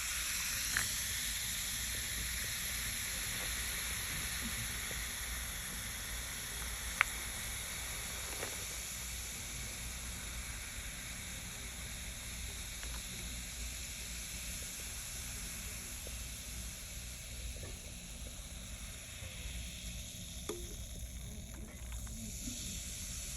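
Carbonated soda fizzing: a steady hiss of bursting bubbles that slowly dies down, with a few sharp clicks, the loudest about seven seconds in.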